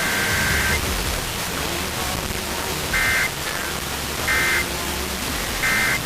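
Emergency Alert System SAME data tones over steady radio static: the tail of a long digital data burst in the first second, then three short identical warbling bursts about 1.3 seconds apart, the end-of-message signal that closes an alert test.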